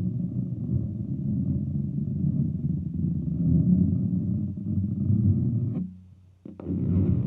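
Horror-film sound effect: a low, distorted droning rumble that stops about six seconds in. A second effect, a growl with falling sweeps, begins shortly before the end.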